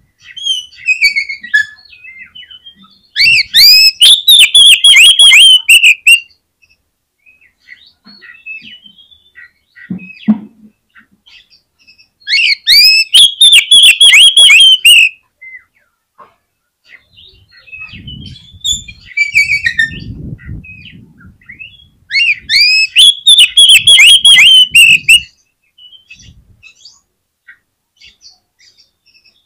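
Oriental magpie-robin (kacer) in vigorous full song: three loud phrases of about three seconds each, every nine seconds or so, each a rapid run of repeated rising-and-falling whistled notes, with quieter scattered calls between them.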